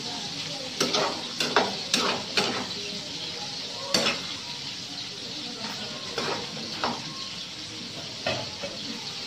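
Squash, long beans and eggplant sizzling steadily in a hot pan while a metal spatula stirs them, clacking and scraping against the pan about nine times, most often in the first few seconds.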